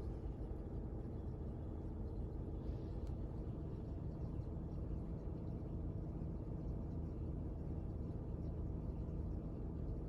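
Toyota RAV4 with its air conditioning running: a steady low hum and rumble, with a faint steady tone setting in about four seconds in.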